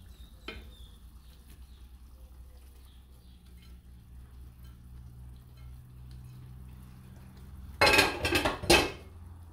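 A low steady hum with faint small clicks, then about eight seconds in a short, loud clatter of dishes and utensils in two quick parts.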